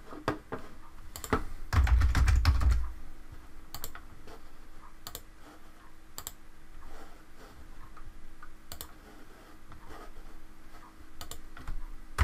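Computer keyboard typing and mouse clicks: a quick, heavy flurry of keystrokes with a low thud about two seconds in, then scattered single clicks and taps.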